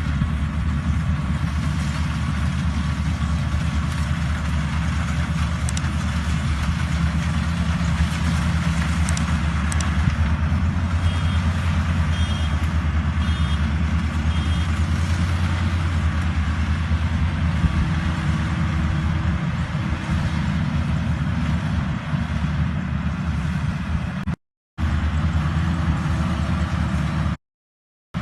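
Kubota rice thresher running steadily, its engine humming low under the rushing noise of the threshing drum. The sound cuts out briefly twice near the end.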